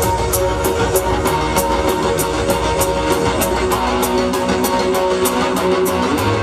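Live Punjabi band playing an instrumental passage without singing: electric guitar and keyboard over a quick, even percussion beat with bright ticks.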